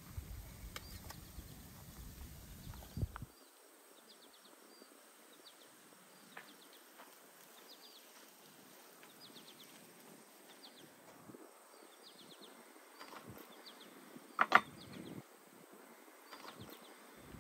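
Quiet outdoor ambience with short, high chirps repeating in quick little groups of three to five, and a low rumble that stops about three seconds in. About fourteen seconds in comes a single sharp knock, the wire grill basket set down on a wooden board.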